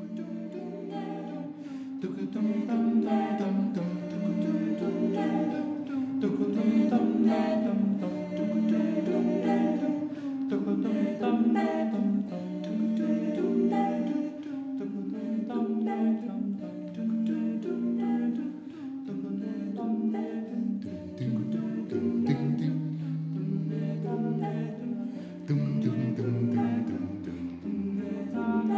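A cappella group singing a circlesong: several voices improvising layered, repeating vocal patterns together. A lower bass-like voice enters about two-thirds of the way in.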